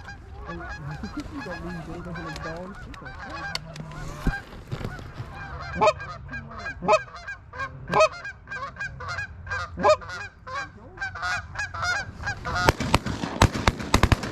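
Geese honking and clucking in a busy, overlapping chorus that turns fast and dense near the end.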